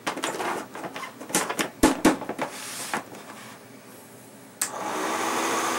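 Hard plastic clicks and knocks as the lid and stacked trays of an Oster food dehydrator are fitted and pressed down, then about four and a half seconds in the dehydrator's fan starts and runs with a steady whirring hum.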